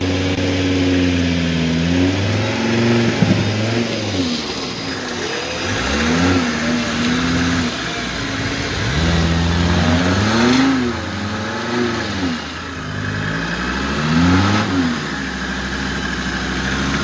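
Off-road prototype buggy's engine revving hard again and again under load, the revs climbing and dropping every couple of seconds as it works to drag the car out of a deep mud pit.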